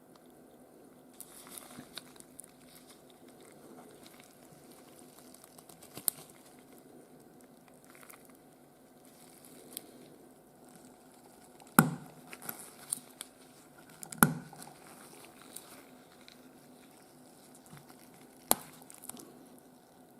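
Small-scale handling of a watch and watchmaker's tools at the bench: light rustling and scattered small clicks and taps, with a few sharp metallic clicks standing out partway through and near the end, over a faint steady hum.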